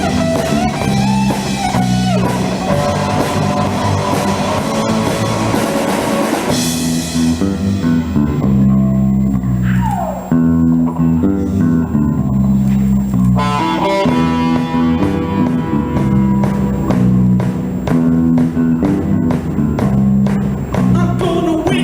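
A live rock band playing an instrumental passage: guitar lead over bass guitar and drum kit, with a falling slide in pitch about halfway through.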